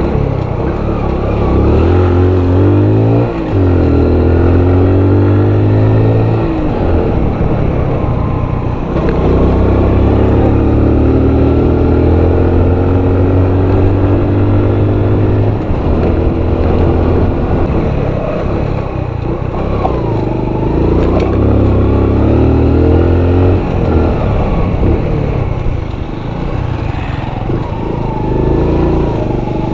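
A 2012 Honda Pop 100's small single-cylinder four-stroke engine pulling the bike along, its revs climbing and then dropping several times as the rider works the throttle and gears.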